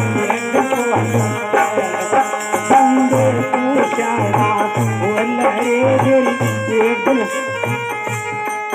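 Devotional folk music: a one-string ektara and wooden kartal clappers clacking in quick rhythm over a regular low drumbeat, with a wavering melody line.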